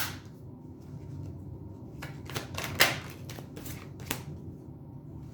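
A deck of tarot cards being shuffled and handled, with a sharp card snap at the start and a quick run of crisp card clicks and flicks about two to four seconds in.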